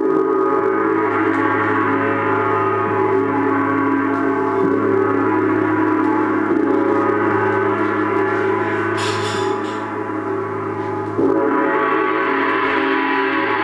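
Large gong ringing with a dense, sustained wash of overtones, kept going with a soft mallet. A fresh stroke about eleven seconds in brings it back up louder and brighter.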